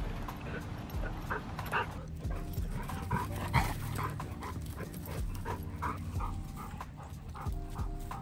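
Dogs panting hard during rough play, short quick breaths repeated throughout. Soft background music comes in about two seconds in.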